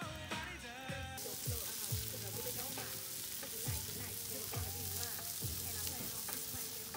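Burger patties and corn cooking on foil over a wood campfire, with an even sizzling hiss that comes in about a second in. Background music with a sung line at the start and a low beat about once a second runs underneath.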